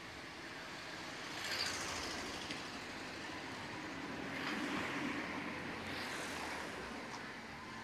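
Street traffic noise that swells twice, as motor vehicles pass.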